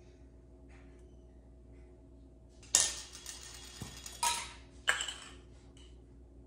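Table knife clattering and scraping against a jar and the plate while spreading peanut butter and jelly on bread: three sharp clinks about three, four and five seconds in, the first and loudest followed by a short scrape, over a faint steady hum.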